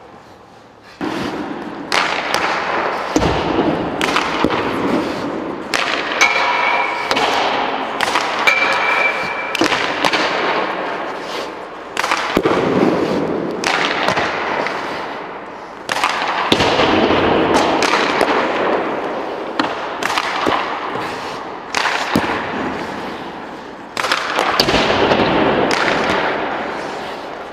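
Ice hockey pucks being shot: repeated sharp cracks of stick on puck and puck striking goalie pads, posts and boards, each ringing on in the echo of a large empty rink, with skate blades scraping the ice between shots.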